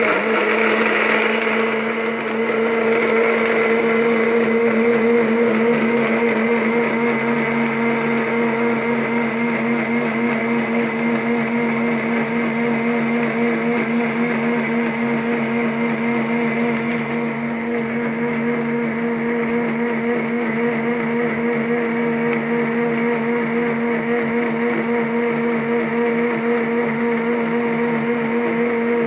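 Electric countertop blender running steadily at full speed, its motor holding an even hum while it purées falsa berries with chilled water into juice.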